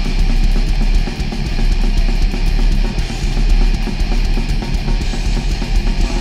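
Loud heavy rock music with electric guitar.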